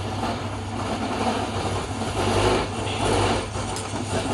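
Woodworking machine running steadily while cutting wood: a low motor hum under noise that swells and eases.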